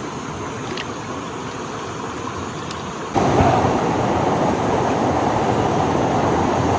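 Water of a small rocky stream running and rushing over stones, a steady noise that steps up louder about three seconds in.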